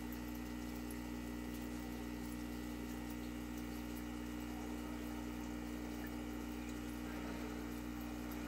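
Aquarium pump running with a steady hum, with water trickling.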